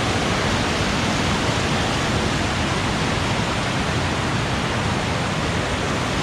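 Steady rushing of a storm-swollen mountain creek and waterfall, whitewater running loud and even.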